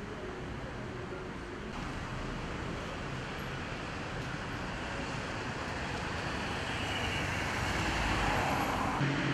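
Steady street traffic noise, a hum of passing road vehicles, gradually growing louder toward the end.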